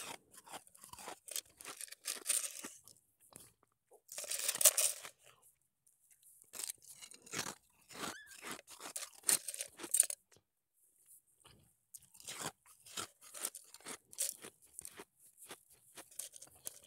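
Sonic-style nugget ice being crunched and chewed in the mouth: a rapid run of sharp, crackly crunches, loudest about four seconds in, with a short pause after about ten seconds before the chewing starts again.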